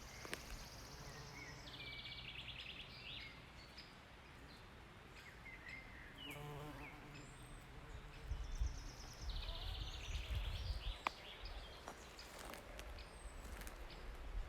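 Forest songbirds singing, with a high trilled phrase about two seconds in and again near ten seconds, and scattered chirps. A flying insect buzzes briefly past around the middle. Faint low rumble in the second half.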